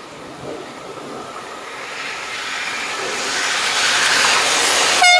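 SNCF BB 27000-class electric locomotive approaching with a freight train, its running noise on the rails growing steadily louder. Near the end, a very short horn toot.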